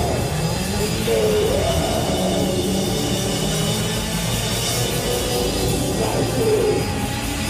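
Loud, dense rock music in a heavy, noisy style, with a pitched line that bends up and down through it.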